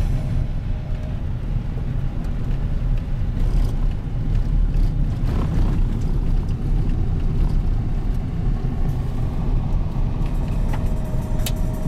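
Pickup truck driving on a dirt road, heard from inside the cab: a steady low rumble of tyres and engine, with a few light clicks and rattles, one sharp click near the end.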